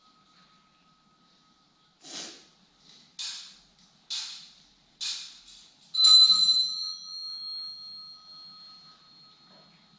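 Altar bells rung at the elevation of the chalice, marking the consecration: four short jingling shakes about a second apart, then a louder stroke about six seconds in that rings on with a clear, slowly fading tone.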